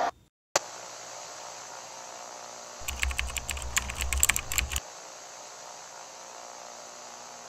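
Keyboard typing: a quick run of key clicks lasting about two seconds, a little under halfway through, over a steady hiss that begins with a click near the start.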